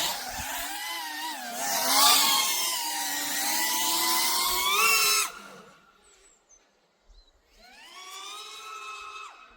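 A 5-inch FPV quadcopter (iFlight Nazgul XL5) on a 6S pack in freestyle flight, its brushless motors whining loudly with pitch rising and falling as the throttle changes. The motor sound cuts off sharply about five seconds in, then comes back quieter with a rising whine near the end.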